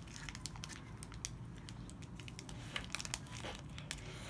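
A candy wrapper crinkling as it is handled, giving a scatter of faint, irregular crackles.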